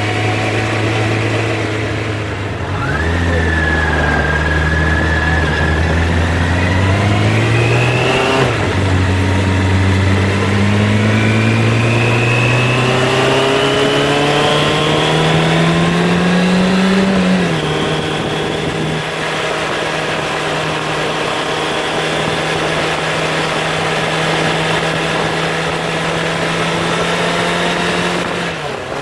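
Motorcycle engine pulling through the gears, heard from the handlebars with wind noise. The revs climb, dip sharply at gear changes about three and eight seconds in, rise in one long pull until over halfway, then drop and settle to a steady cruise.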